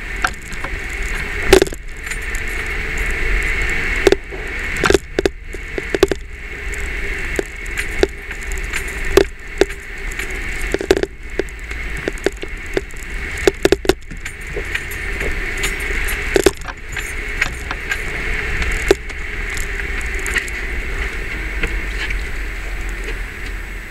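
Irregular sharp taps and chattering of a camera knocking against the inside of the front windshield as a Jeep jolts slowly over a rough tunnel floor, over the steady rumble of the vehicle running.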